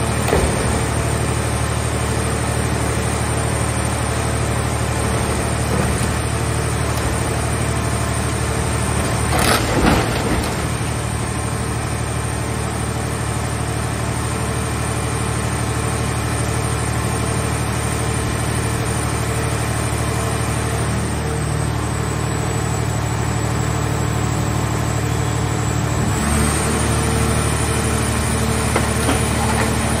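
Portable car baler's engine-driven hydraulic power unit running steadily, with a loud crash of crumpling car-body metal about ten seconds in as the car shell is dropped into the press box. Near the end the machine's note rises as it takes load for the lid to start closing.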